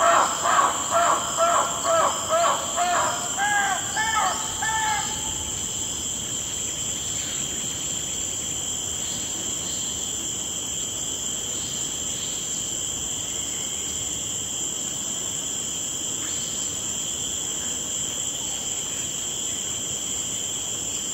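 Jungle ambience sound effect: a steady high drone of insects, with a rapid series of repeated calls at the start that fades out over about five seconds.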